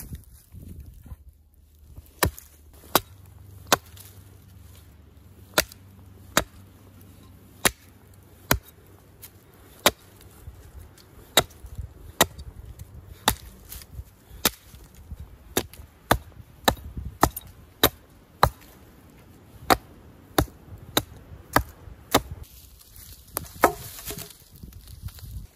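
Axe chopping green saplings at the base: sharp, evenly spaced strikes of the blade into the wood, a little more than one a second, starting after a short pause.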